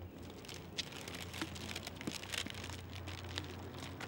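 A crowd standing and shifting about: scattered footsteps, small clicks and crinkling rustles, over a low steady hum.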